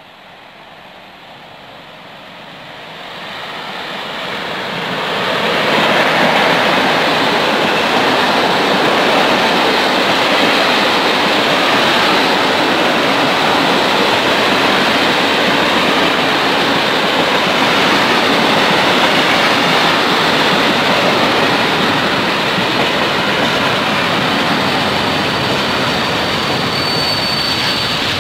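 Freight train of hopper wagons approaching and rolling past close by. Steel wheels on the rails make a rising noise over the first few seconds, then a loud, steady rolling rumble and clatter as the wagons go by.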